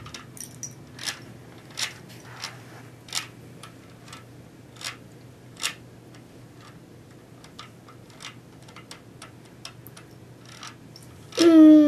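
Plastic toy pieces clicking and clacking as they are handled, in irregular light knocks, several sharper ones in the first half. Near the end a loud call with a falling pitch cuts in for about a second.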